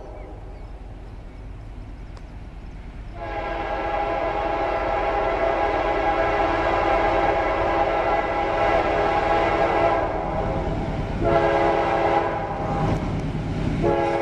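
Freight locomotive's multi-note air horn sounding a long blast from about three seconds in, cutting out briefly twice near the end and sounding again each time, over the steady rumble of a passing double-stack intermodal train.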